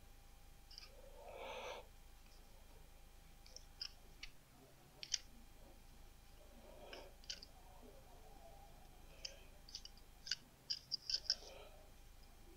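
Scattered sharp metallic clicks and taps from a hand tube-flaring tool being handled and set up, with a quick run of louder clicks near the end.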